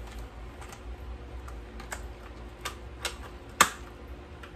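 Irregular light clicks and taps of drywall screws and a plastic parts organizer being handled, with one sharper click about three and a half seconds in.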